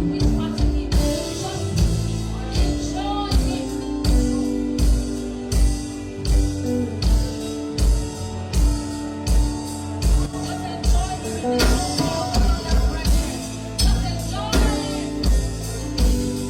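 Song playing, with a voice singing over a steady drum beat and guitar.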